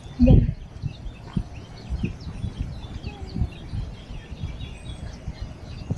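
Small birds chirping and calling steadily in the background, over irregular low thumps and rustling, the loudest a thump just after the start.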